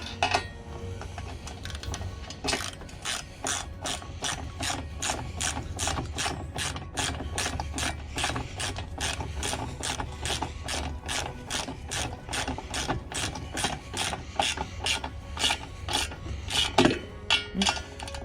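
Hand ratchet wrench clicking as it turns a bolt, an even run of about three clicks a second, with a few louder knocks near the end.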